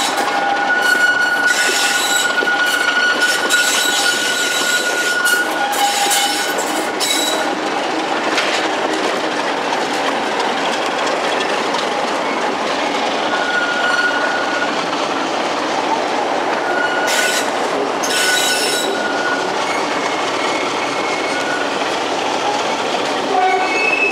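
Train rolling slowly over the rails, heard from on board through an open window: a steady rumble of wheels on track, with high-pitched wheel squeal coming and going on the curves.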